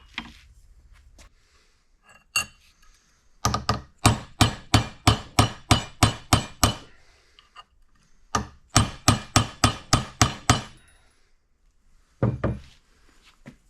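Hammer driving a ball-socket end into the cut, chamfered end of a shortened engine pushrod: a few single knocks, then two runs of quick, even strikes at about three a second, and a last couple of knocks near the end.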